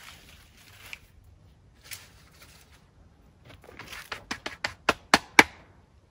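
A quick run of about ten sharp taps that come faster and louder over a couple of seconds, after a few seconds of faint handling noise.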